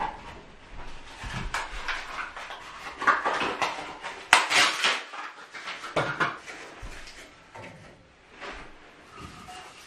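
Hands working at a small sheet-steel wood stove while laying a fire: scattered knocks, clicks and rustling of wood and metal, busiest through the middle with one sharp knock about four seconds in, then fewer, softer sounds near the end.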